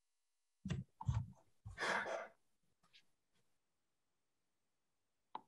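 A person breathing into a webinar microphone: two short breaths, then a longer sigh about two seconds in. A single sharp click comes near the end.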